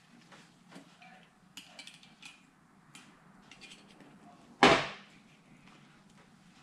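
Light clicks and taps of small metal engine parts being handled, with one sharp, loud metallic knock about four and a half seconds in as a metal piece is set down on the workbench.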